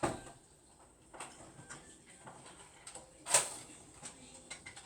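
Two sharp knocks about three seconds apart, with faint clicks and taps between them.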